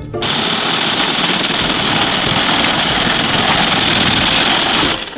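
Electric snow cone machine running, its motor shaving ice in a steady, even grinding rush that starts and then cuts off abruptly after about five seconds.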